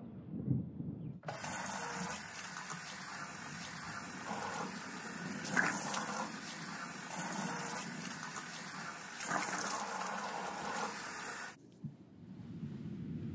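Water running from a bathroom sink's lever tap into the basin. It is turned on about a second in, runs steadily, and cuts off abruptly near the end.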